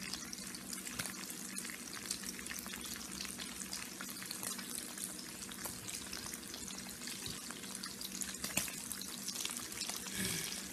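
Bacon strips frying in a nonstick pan: continuous sizzling with many small crackling pops of spattering fat, one a little louder near the end.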